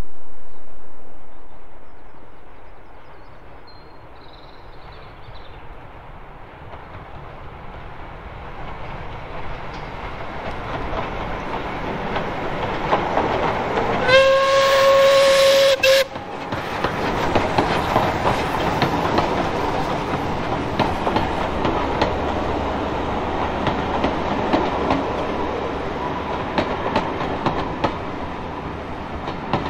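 Two Caledonian Railway steam locomotives, 828 and 419, double-heading a train past. It opens on a loud rush that fades within about three seconds. The train then draws nearer, gives one whistle blast of about two seconds midway, and passes with a steady clickety-clack of carriage wheels over the rail joints.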